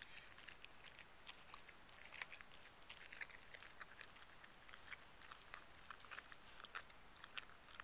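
Labrador retriever chewing and crunching a whole raw fish: faint, irregular crunches and clicks as her teeth work through it.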